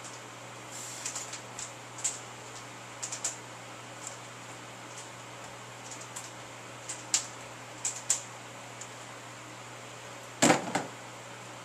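Light rubber resistance band stretched and released in repeated pull-aparts: scattered short clicks and snaps over a steady low hum. A louder slap comes about ten and a half seconds in, as the band is let go and swung.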